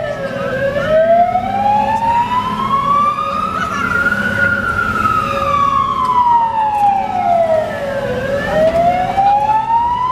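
London Fire Brigade fire engine's two-tone-free wail siren sweeping slowly up and down: it bottoms out about half a second in, climbs to a peak about four seconds in, falls to a low near eight seconds and starts climbing again. A low vehicle engine rumble runs underneath.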